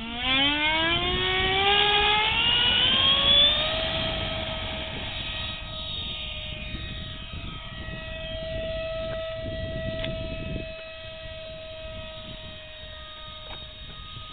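Electric ducted-fan motor of a radio-controlled model jet spooling up for takeoff: a whine that rises steeply in pitch over the first few seconds as the throttle opens. It then holds a steady high whine at full power that slowly grows fainter as the plane climbs away.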